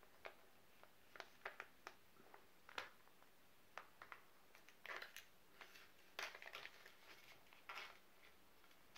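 Faint crinkling and rustling of an MRE foil retort pouch being handled and opened, in scattered short bursts, with a louder cluster about five seconds in and another around six to seven seconds in.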